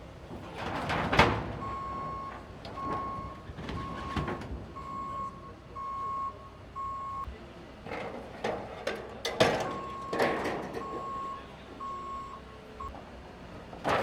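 Wheel loader's reversing alarm beeping about once a second, stopping briefly in the middle, over loud clanking and clattering of debris being moved; the loudest knock comes about a second in.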